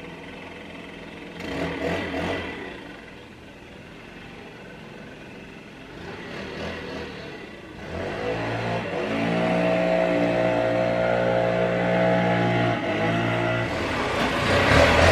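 An engine starts running about eight seconds in and runs at a steady pitch, shifting near the end. A shorter burst of mechanical noise comes about two seconds in.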